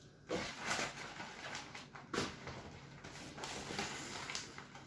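A scoop digging into a bowl of moist, dark seed-based carp bait mix and tipping it into a plastic bag: a few irregular scrapes and rustles, the sharpest about two seconds in.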